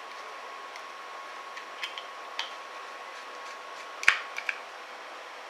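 Light metallic clicks and taps of screws, a screwdriver and metal cooler parts being handled while a graphics card cooler is assembled: a few small ticks, then a sharper click followed by two lighter ones about four seconds in, over a faint steady background whine.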